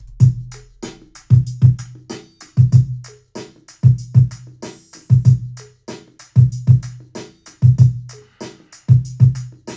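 Ready-made drum-machine loop playing at about 95 beats a minute: deep kick hits with sharper snare and hi-hat strikes in a steady repeating pattern.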